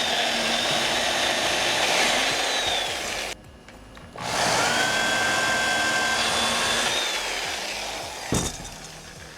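Corded Craftsman electric drill boring shelf-pin holes in wood: two runs of a few seconds each with a steady high whine, separated by a short pause. A single short knock follows near the end.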